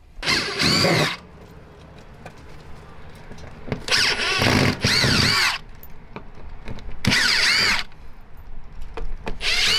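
Cordless drill-driver backing out the screws that hold an RV water heater's frame to the trailer wall, in four short bursts, the motor whine rising and falling in pitch with each squeeze of the trigger.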